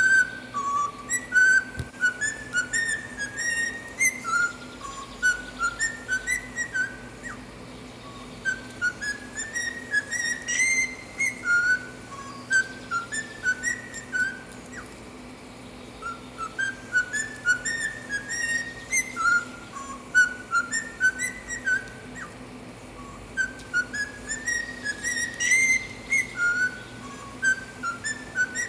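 Cockatiel whistling a learned tune in short clear notes that climb step by step to a high peak note. The same phrase is whistled again partway through.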